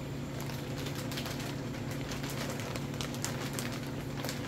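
Steady low hum with several even tones, with a few faint clicks and crinkles from a plastic fish shipping bag being handled.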